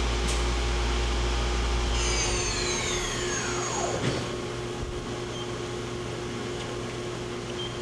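Main spindle of a Mori Seiki NLX-2500SY CNC turning center running at 2500 RPM with a low rumble. About two seconds in it spins down: a whine falls steadily in pitch over about two seconds as the spindle slows to a stop, leaving the machine's steady hum.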